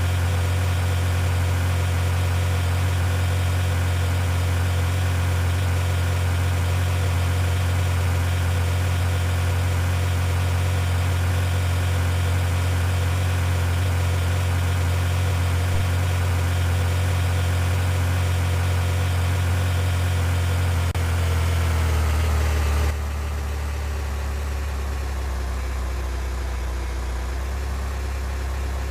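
Vehicle engine running with a steady low hum. About 21 seconds in, its pitch sags, and a couple of seconds later it steps down to a quieter, lower drone.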